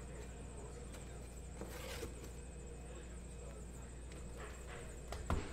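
Steady low room hum with faint rustling as a cardboard hobby box of trading cards is handled, and a single sharp knock near the end as the box is set down on the table.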